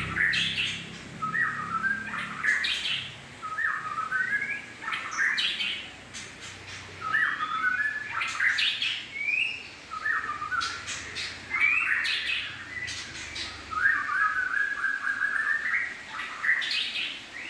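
A bird calling over and over in short chirping phrases, one every second or two, with a longer run of notes near the end.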